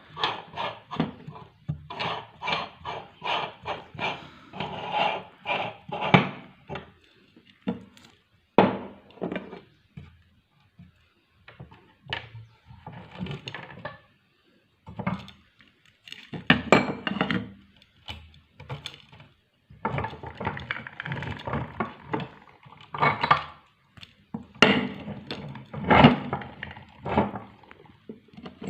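Meat grinder crushing hard candy lollipops: rapid irregular cracking and clattering of candy and stick pieces, in bursts with short pauses between.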